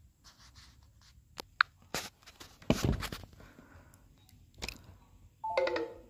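Clicks and knocks of a phone being handled, the loudest about a second and a half and nearly three seconds in. Near the end comes a short electronic tone that steps downward in pitch.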